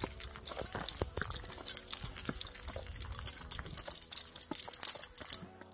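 Metal carabiners, quickdraws and cams racked on a climbing harness jingling and clinking against each other with every stride, along with footsteps on loose gravel. The clinking stops suddenly just before the end.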